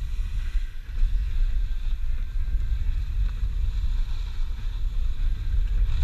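Wind buffeting the action camera's microphone as a skier glides downhill, a heavy, gusting rumble, with a faint hiss of skis sliding over groomed snow.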